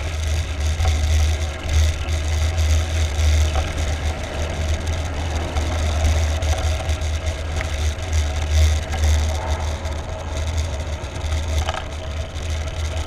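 Wind rumbling on the microphone of a handlebar-mounted camera on a moving bicycle, with rolling ride noise from the pavement.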